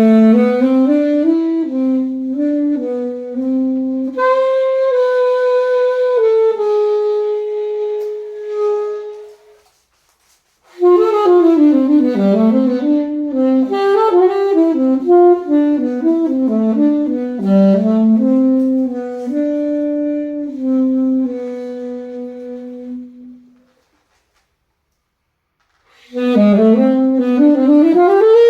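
Solo alto saxophone playing a melody one note at a time, in phrases with pauses between them. A phrase of about ten seconds is followed by a brief break. A longer phrase with quicker runs up and down follows, then silence for a couple of seconds, and a new phrase that swoops upward near the end.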